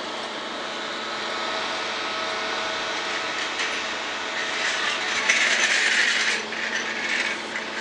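Steady whirring hum of cooling fans on a test bench, with a few faint steady tones in it. A louder rushing hiss rises over it for about two seconds past the middle.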